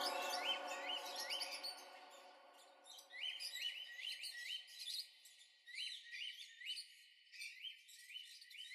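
A music track's sustained chords fade away over the first three seconds, leaving runs of short, rising bird chirps with all the low end filtered out.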